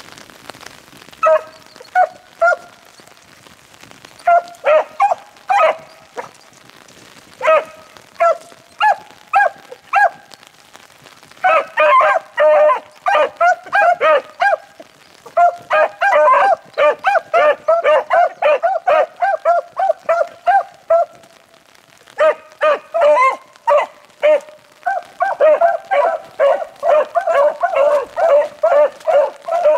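Several beagles baying as they run a rabbit's scent trail: scattered single bays at first, then the hounds giving tongue almost continuously, with a short lull about two-thirds of the way through.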